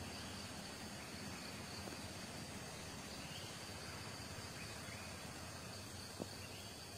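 Faint outdoor ambience: a steady high-pitched insect drone over a low hiss, with one faint click about six seconds in.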